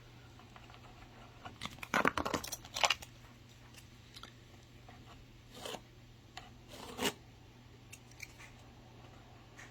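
Scraping and clicking as wall repair paste is squeezed from its tube into a crack and worked in with a small plastic spatula: a cluster of scrapes about two seconds in, then two shorter ones later.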